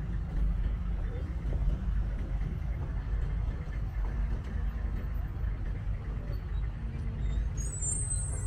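City street traffic: a steady low rumble of passing cars and buses, with a high squeal starting near the end.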